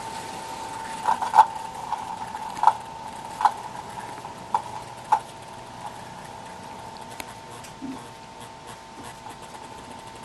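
American Flyer S-gauge model train cars rolling along the track, their wheels clicking sharply over the rail joints at irregular intervals through the first five seconds or so, then more faintly, over a steady high hum.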